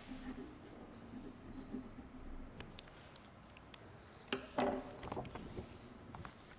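Small handling sounds picked up by a lectern microphone: a pen writing on paper, scattered light clicks, then papers being gathered up. The loudest is a short rustle with clicks about four and a half seconds in.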